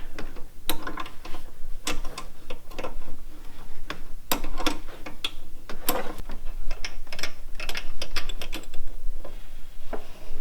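Ratchet wrench clicking in a run of irregular strokes while backing out a double-nutted stud, the stud turning loose and coming out.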